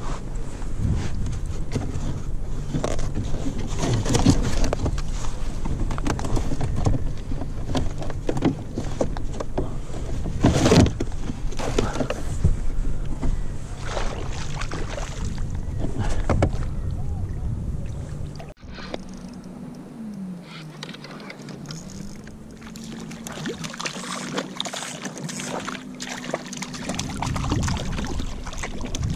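Water splashing and lapping against a plastic sit-on-top kayak, with frequent knocks and rustles from handling the catch and gear, and a small splash as a fish drops into the water near the end. After a sudden cut about two-thirds of the way through, the water is quieter and a low steady hum dips and then rises in pitch.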